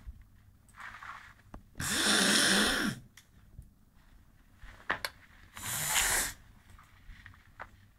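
A boy imitating snoring: a faint breath, then two loud rasping snores about four seconds apart, the first longer and with a low rumbling tone.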